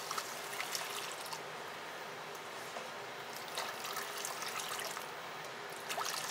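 Hot water poured in a steady stream from a pot into a pan of roasted semolina, splashing into the mixture. A few light clicks come through the pour around the middle and near the end.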